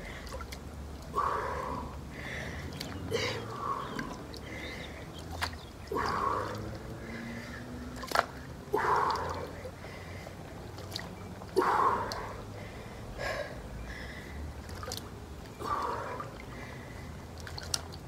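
Water sloshing and splashing in a shallow inflatable pool as a person squats down and stands up in it. A swishing surge comes every two to three seconds, with scattered sharp drips and clicks in between.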